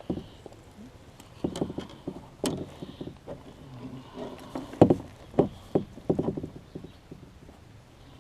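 Irregular hollow knocks and clunks of fishing gear being handled against the hull of a small duck boat, about a dozen in all, loudest about five seconds in.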